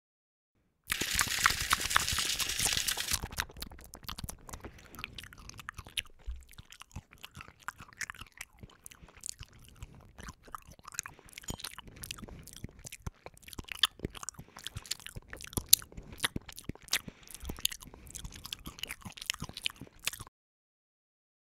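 Chewing and crunching sound effect: a loud crunching bite about a second in, then a long run of irregular chewing and crunching that stops suddenly near the end.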